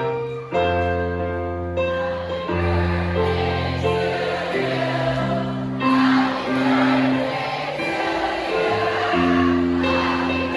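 Music: a song with a choir singing long held notes over chords.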